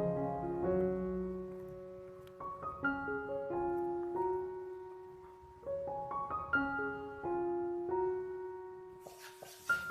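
Background piano music: a slow, gentle melody of single notes and soft chords. A hiss joins near the end.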